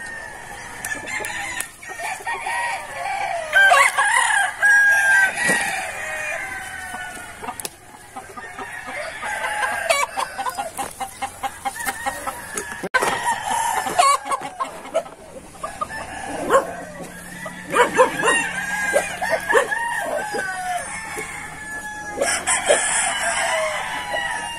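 Domestic chickens clucking in runs of short calls, with a rooster crowing.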